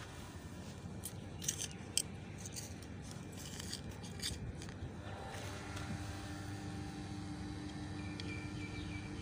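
Faint short crunches and scrapes of garden soil being worked by hand, clustered in the first half. A faint steady hum comes in about halfway through.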